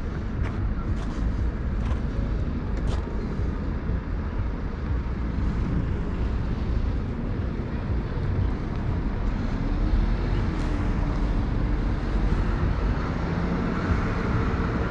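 Steady wind and road rumble on an e-bike rider's action camera while riding in traffic. There are a few light rattling clicks in the first three seconds, and from about eight seconds in a faint motor tone rises and falls.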